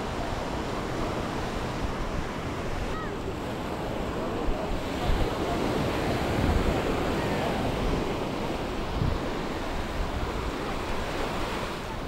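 Small sea waves breaking and washing up the sand at the water's edge in a steady wash of surf, with wind gusting on the microphone as low rumbles.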